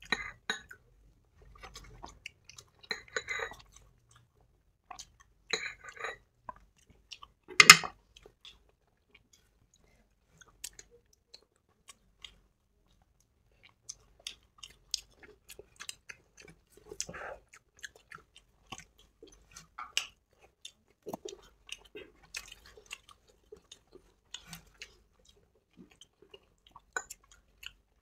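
People chewing soft idli dipped in chutney, with scattered quiet wet mouth sounds and lip smacks. A single louder sharp knock comes a little under eight seconds in.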